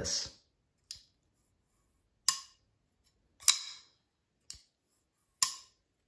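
Kizer Sheepdog XL Titanium button-lock folding knife being flicked open and shut: five sharp metallic clicks with a short ring, three of them loud. Each loud one is the "tink" of the blade snapping fully open against its stop.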